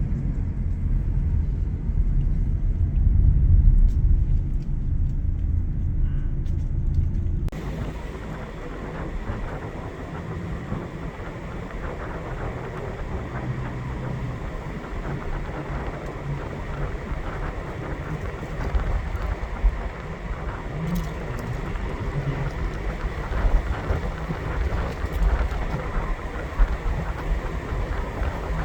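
Car on the move: a steady low rumble of engine and road noise. About seven seconds in it changes abruptly to a quieter, hissier road noise.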